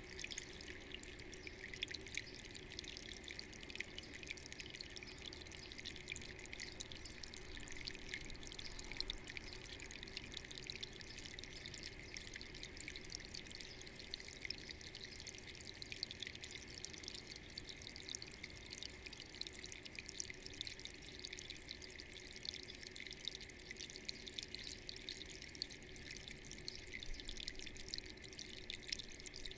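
Water running steadily down the ridged face of a Kenroy Home Ripple floor fountain and splashing into its basin of river stones, a continuous trickle and splash.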